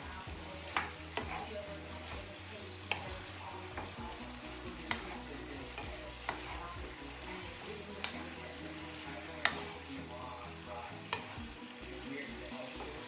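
Wooden spatula stirring chayote and pork belly in a frying pan over a low sizzle, with a sharp knock of the spatula against the pan every second or two.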